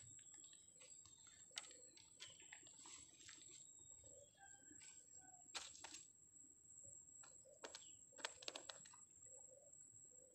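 Near silence: faint ambience with a thin steady high tone, a few soft scattered clicks and some short faint chirps.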